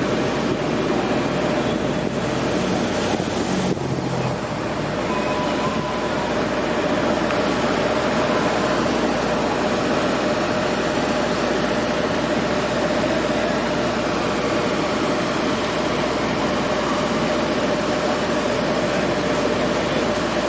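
City street traffic: cars and vans passing through an intersection, as a dense, steady wash of engine and tyre noise with a steady hum underneath.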